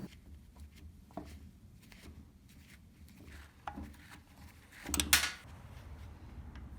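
Light clicks and knocks of small hard parts being handled and set down, with a louder clatter about five seconds in.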